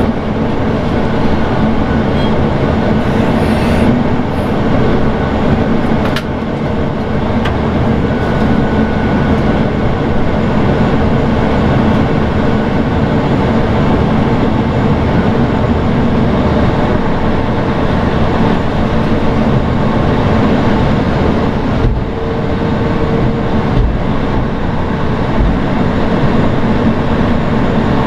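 Towbarless aircraft tug pushing back an Airbus A340-600, its engine and drivetrain heard from inside the cab as a loud, steady mechanical rumble with a low hum, dipping briefly twice.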